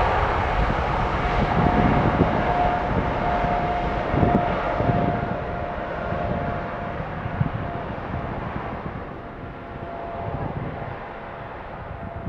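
British Airways Boeing 777's jet engines at takeoff power, heading away: a steady rush of noise with a steady whine that grows duller and fades over the whole stretch.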